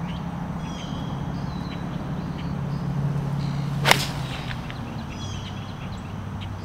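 A golf club striking the ball on a full approach shot: a single sharp crack about four seconds in.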